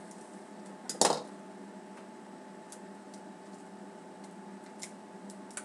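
Jumbo trading-card pack being slit open with a knife and its wrapper pulled apart: one sharp crackle about a second in, then a few faint ticks of handling over a steady low hum.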